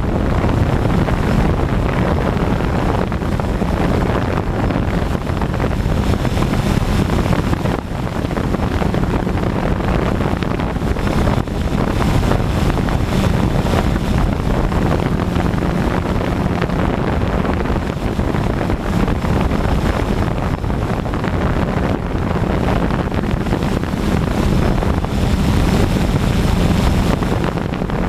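DJI Phantom 2 quadcopter's propellers buzzing steadily, recorded by the camera it carries, with wind buffeting the microphone in gusts.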